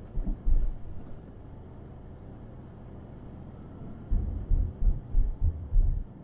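Steady low road and running noise of a car being driven, heard from inside. Irregular low thuds come about half a second in and again as a cluster over the last two seconds.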